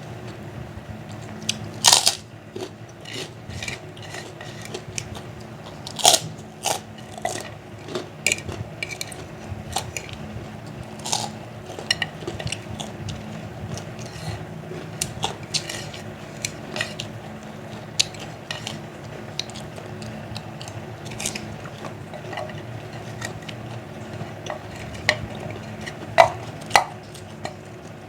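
Close-up crunching and chewing of fried kerupuk crackers and fried nuggets: sharp, irregular crunches, the loudest about two, six and twenty-six seconds in, over a steady low hum.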